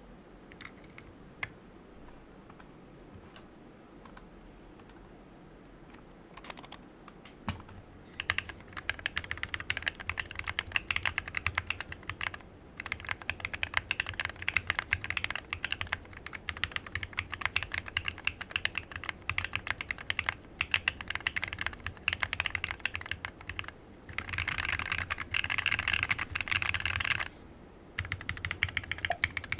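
Typing on a Planck Rev6 ortholinear mechanical keyboard with lubed Cobalt POM linear switches and PBT keycaps, in an aluminium case with a steel plate. A few scattered keystrokes for the first seven seconds or so, then steady fast typing, with a stretch of very rapid keystrokes a few seconds before the end and a short pause just after it.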